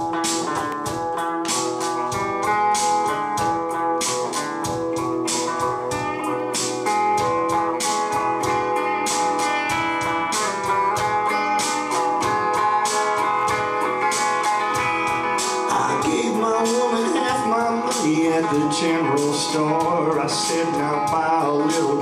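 Electric guitar playing a country instrumental intro over a steady beat. The notes waver and bend toward the end.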